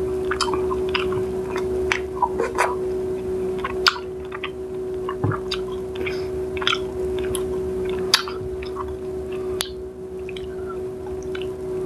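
Eating sounds: chewing with sharp wet clicks and soft squishes as fingers pull apart tilapia stewed in coconut milk, scattered irregularly over a steady low hum.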